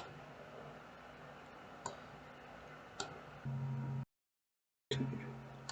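Faint, sparse computer mouse clicks, four single clicks a second or so apart. A low steady hum comes in about three and a half seconds in and drops out to dead silence for under a second before returning.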